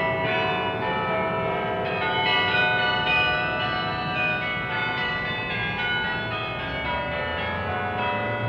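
Church bells ringing a tune: a steady run of strikes, each bell's tone ringing on under the next, so the notes overlap into a continuous peal.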